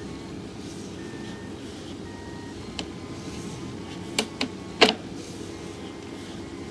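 Sewer inspection camera equipment running with a steady low hum while the camera is pushed along the line. There is a small click about three seconds in, then three sharp knocks between about four and five seconds in, the last the loudest.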